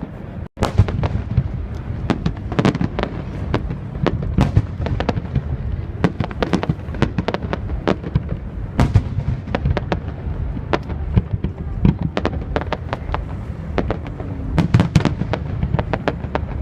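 Fireworks display: a continuous rapid barrage of sharp bangs and crackles, several a second, over a steady low rumble. The sound drops out for an instant about half a second in.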